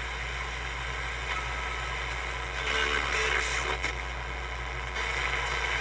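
Small FM radio kit's speaker hissing with static as it is tuned across the band, with a steady low hum underneath. Louder snatches of a station come through about two and a half seconds in and again near the end.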